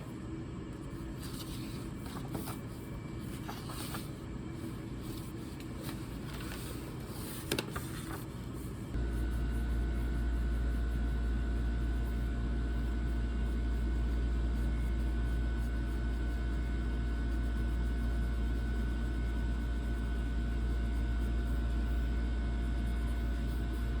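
A few light clicks and handling sounds, then, suddenly, about nine seconds in, a steady low hum with a faint high whine that runs on unchanged.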